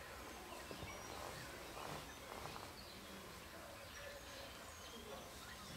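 Young giant pandas chewing bamboo leaves, with soft crackling and crunching as the leaves are bitten and handled, against faint outdoor noise and a few faint bird chirps.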